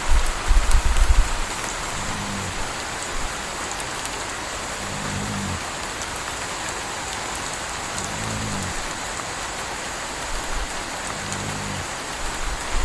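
Steady rain falling, with a puppy snoring about every three seconds, four snores in all. A low rumble in the first second is the loudest thing.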